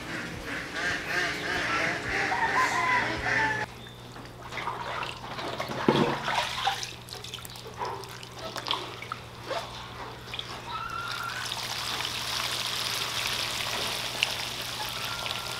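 Water splashing and trickling as a net of catfish fry is lifted and poured into a plastic basket, with a louder splash about six seconds in and a steady low hum underneath. Bird calls are heard in the first few seconds.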